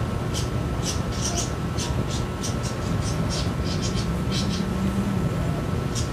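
Steady low background rumble with a faint steady whine, broken by short high-pitched chirps or ticks two or three times a second.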